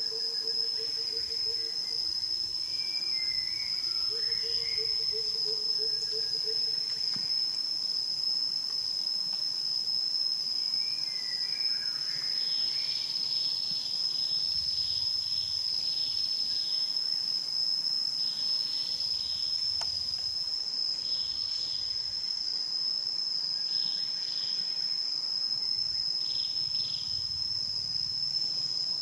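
A steady, high-pitched insect drone of cicadas or crickets in the trees, with a few short chirps and repeated brief pulses over it.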